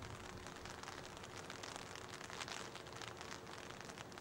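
Rain falling: a dense, even patter of drops, with many sharp close ticks of drops striking near the microphone.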